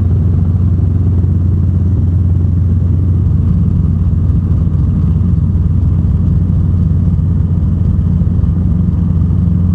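Robinson R22 Beta helicopter heard from inside the cabin in flight: its piston engine and rotors running with a steady low drone.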